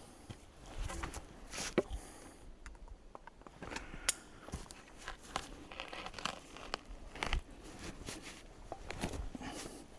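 Irregular crunches, snaps and rustles of someone handling things at close range, with no regular rhythm.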